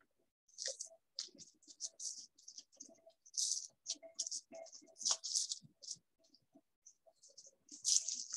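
Gloved hands pressing and smoothing glue-soaked newspaper pieces onto a papier-mâché volcano: irregular, crisp crinkling and rustling of wet paper and plastic gloves, with a quieter stretch just past the middle.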